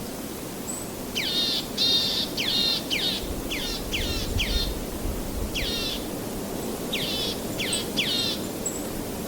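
A bird calling in short, downward-sweeping notes in groups of three or four, about eleven notes in all, with a pause in the middle, over a steady background rush of water.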